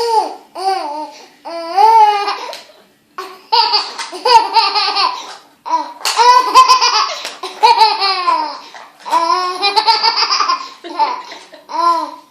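Baby laughing hard in a string of high-pitched bouts of giggles and squeals, each rising and falling in pitch, with short breaks between the bouts.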